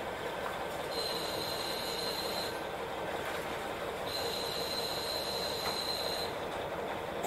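KiHa 40 diesel railcar running, heard from inside the car, with the steady rumble of wheels on rail. A high metallic squeal from the wheels comes twice: about a second in for a second and a half, and again from about four seconds in for about two seconds.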